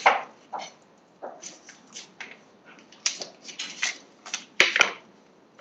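Plastic steak packaging crinkling and rustling in irregular short bursts as it is handled and cut open with kitchen scissors. Two sharp snips come a little after the middle.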